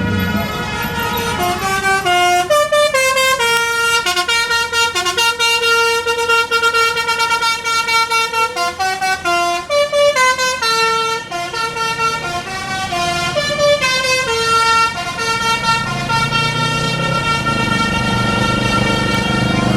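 An Indonesian bus's 'telolet basuri' multi-tone musical horn playing a long melody of quick stepped notes that rise and fall in repeated phrases. A low rumble comes up near the end under the last held notes.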